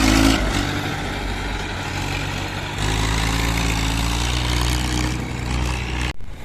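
Heavy diesel engine of earthmoving machinery running steadily, its note easing off and picking up again as the load changes, with a sudden brief break just after six seconds.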